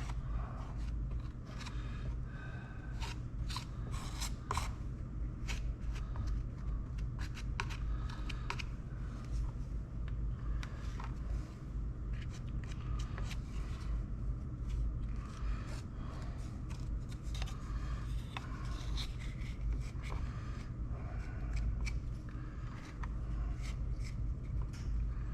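Short, irregular scraping and clicking strokes of a tool spreading JB-Weld epoxy thinly over the rim of a console panel, over a steady low hum.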